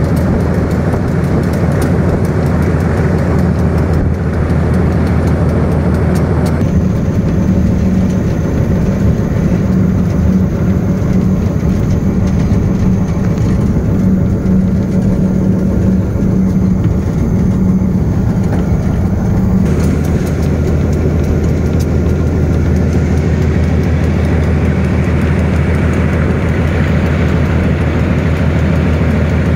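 Diesel locomotive engine running steadily in a high throttle notch, with a loud low drone and the rush and rattle of the moving train. The brighter rattle drops away for a stretch in the middle and then returns.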